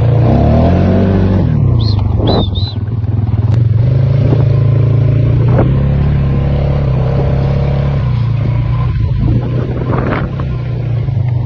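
A vehicle engine running steadily at low revs, with a falling sweep in pitch in the first second or so.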